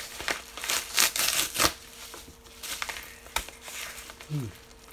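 A mailing envelope being torn open and rustled by hand, with irregular crinkling and tearing that is loudest between one and two seconds in, then a sharp click.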